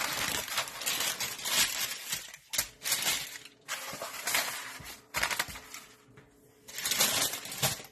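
Baking paper crinkling and rustling as it is folded and pressed around a lump of pastry dough, in a run of short bursts with brief pauses between them.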